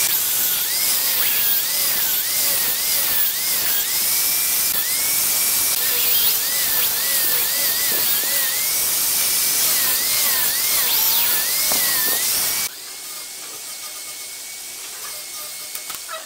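Angle grinder with a sanding disc running against the edge of a wooden tabletop, its motor whine rising and falling again and again as the pressure changes. About 12 seconds in the sound drops suddenly to a much quieter level.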